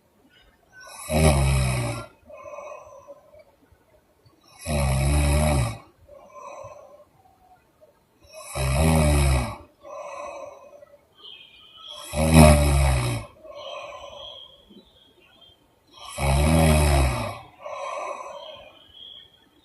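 A sleeping woman snoring in a slow, regular rhythm: five loud, low snores about every four seconds, each lasting about a second, each followed by a softer, breathy exhale.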